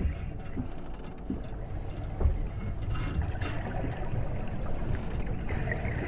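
Steady water ambience with a low rumble underneath, with a few soft knocks; the strongest is about two seconds in.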